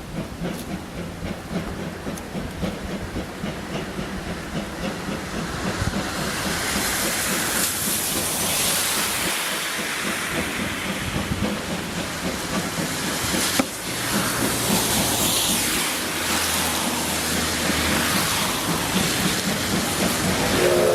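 C11 steam locomotive working a train past, its exhaust chuffing in a fast rhythm with a loud hiss of steam that swells about a third of the way in, getting louder as it comes closer.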